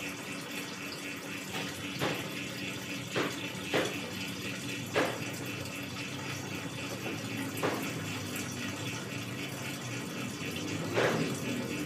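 Fuel trickling steadily through a hose from a motorcycle fuel tank into a plastic mineral-water bottle, with about six brief louder gurgles. The tank is being drained to get out rainwater that has got into the fuel.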